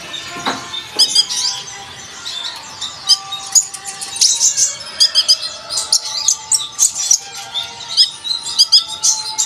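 Sunbird (kolibri ninja) chirping and twittering in rapid, high, sharp notes, with steady faint music underneath.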